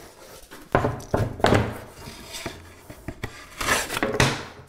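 An OLFA utility knife scoring and cutting through a piece of drywall: several short, rasping scrapes of the blade through the paper and gypsum. The strokes come in a cluster about a second in and again near the end.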